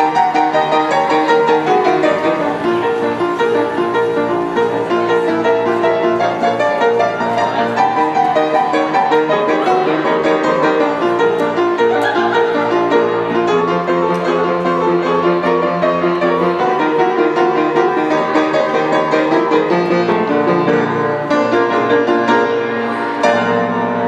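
Upright piano played in boogie-woogie style in B flat, a continuous stream of fast notes over a driving bass.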